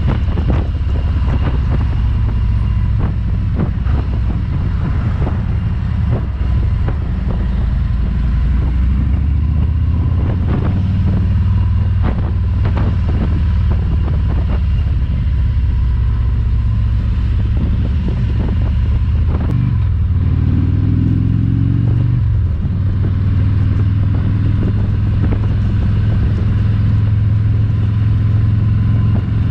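Harley-Davidson motorcycle's V-twin engine running under way, with wind buffeting the microphone. About twenty seconds in, the engine note swings up and back down as the engine speed changes.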